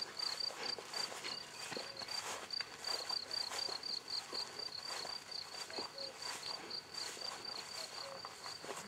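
An insect chirping in a steady train of short, high chirps, a few per second. Over it, the rustle of footsteps running through grass.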